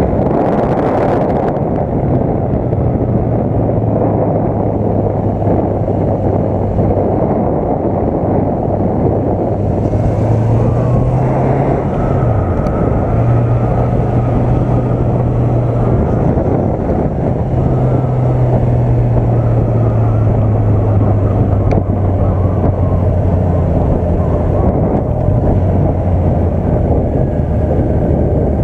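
Honda CB650F's inline-four engine running at a steady cruise, heard through heavy wind rush on the onboard microphone. Around twelve seconds in the engine note climbs briefly, then drops sharply, and it eases lower toward the end.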